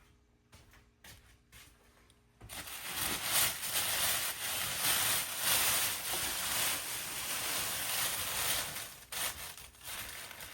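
Plastic wrapping rustling and crinkling as it is handled and pulled off a new cordless air compressor. It starts loudly about two and a half seconds in, after a quiet stretch with a few faint clicks.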